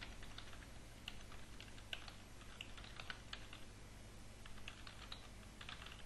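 Faint typing on a computer keyboard: quick, irregular keystrokes, a few a second, with short pauses between runs.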